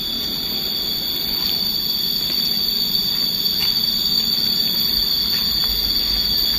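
A steady high-pitched whine of two even tones that never changes, over a low, even background noise.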